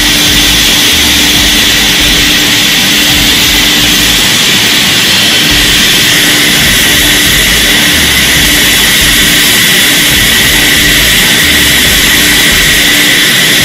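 Vacuum extraction motor of a steam sterilizer running loudly and steadily, an even rushing whine over a constant hum, drawing air out through the hose from the sterilizing chamber. This is the vacuum stage that runs once the target reaches 35 °C and holds its temperature there.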